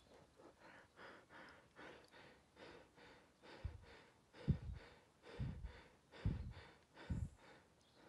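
Fast, rhythmic breathy puffs, two to three a second. From about halfway in, four or five heavier puffs about a second apart thump on the microphone.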